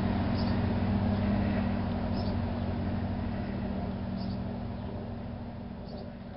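Steady mechanical hum of a running machine with a low drone and a faint high tick about every two seconds, gradually fading away.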